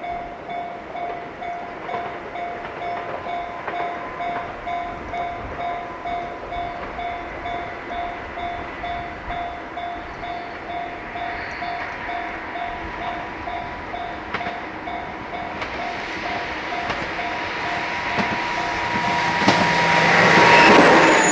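Japanese level-crossing warning bell ringing with an even repeated ding, a bit under two strokes a second. About sixteen seconds in, the running noise of an approaching two-car 103 series electric train builds up and grows loud near the end.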